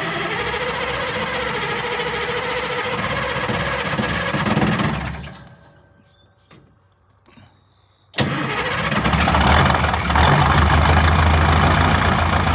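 Cold start of an Oliver 2255's Caterpillar V8 diesel with a straight exhaust stack. The starter whines and cranks for about five seconds, then stops. About three seconds later it cranks again, the engine catches, and it runs loudly.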